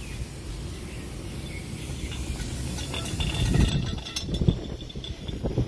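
A replacement KYB shock absorber handled and set against its lower mount on a truck, giving a few light metal clicks and knocks about three to four seconds in, over a steady low rumble.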